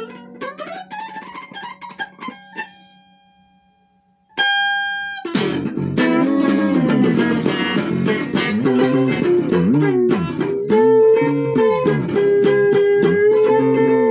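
Stratocaster-style electric guitar playing an instrumental blues break full of string bends. The notes die away almost to silence about four seconds in, a single held note follows, then louder soloing with long bent notes.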